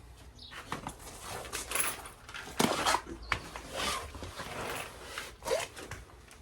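Scattered clicks, taps and rustling of hands and tools working at the motorcycle's ignition wiring, with one sharp knock about two and a half seconds in.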